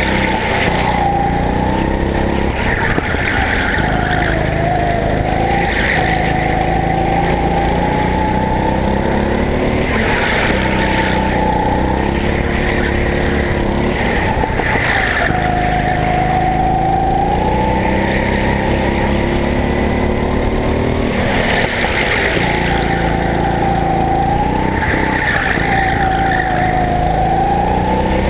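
Go-kart engine running hard through a lap, its pitch dropping as it slows for each corner and climbing again on the way out, several times over. Short bursts of tyre squeal come in some of the corners.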